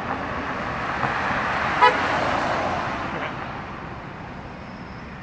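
A car passing on the road, its engine and tyre noise swelling and then fading away, with one short car-horn toot about two seconds in.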